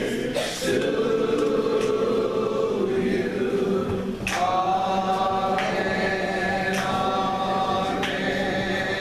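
Gospel vocal group singing in harmony. About four seconds in they move into long held chords that change roughly every second and a quarter.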